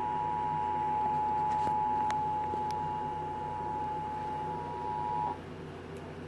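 Emergency Alert System two-tone attention signal: a steady tone of two pitches sounding together that cuts off about five seconds in, leaving a low background hum.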